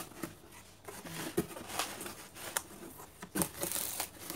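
Bubble wrap crinkling and cardboard box rustling as hands reach into a packed box, with several sharp crackles.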